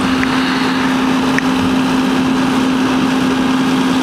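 Fire engine running steadily at idle, an even droning hum with a constant low tone.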